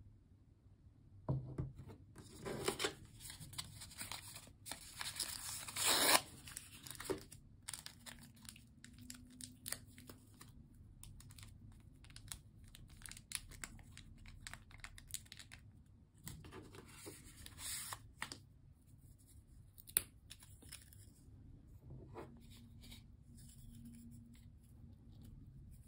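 A small plastic seasoning packet being torn open and crinkled by hand, in several bursts of tearing and rustling, loudest about six seconds in. Later comes a single sharp click among lighter handling sounds.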